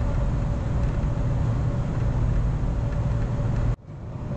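Running noise of an ex-JR 413/455-series electric train heard from inside the passenger cabin: a steady low rumble of wheels on track with a faint steady hum. Near the end the sound cuts off abruptly and fades back in.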